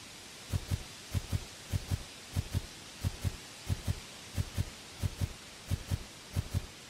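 Heavy, low thumps in pairs, about one pair every 0.6 s, the footstep sound of an animated giraffe walking.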